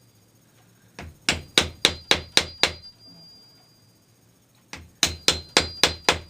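Hammer tapping a wooden stick to drive new cane webbing into the groove of a chair seat frame: two runs of about seven quick, sharp taps, roughly four a second, with a pause of about two seconds between them.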